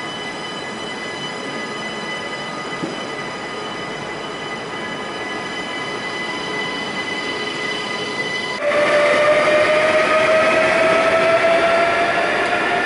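Electric passenger trains in a station: a steady hum with several high, fixed whining tones from an electric multiple unit. About two-thirds of the way in, the sound jumps suddenly louder to an electric locomotive's traction whine, which rises slowly in pitch as the train accelerates away.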